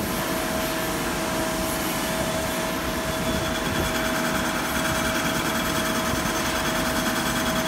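CNC turning center's spindle running steadily while the boring bar is fed in by handwheel to take a light cut inside the bore of the spinning workpiece. A steady high tone comes in about a third of the way through.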